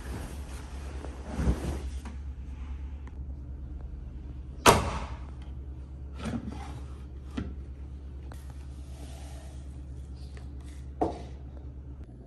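Clothes rustling as laundry is pushed into the drum of an LG front-loading washing machine. The door is then shut with a sharp thud about five seconds in, the loudest sound. A few lighter clicks and knocks follow as the controls are worked and the detergent drawer is pulled open near the end, over a steady low hum.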